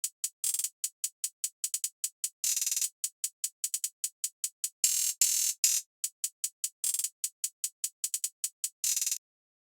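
GarageBand drum-machine beat made only of quick high hi-hat ticks, about five a second with faster rolls, and a few longer hissing hits, with no bass. It cuts off suddenly near the end.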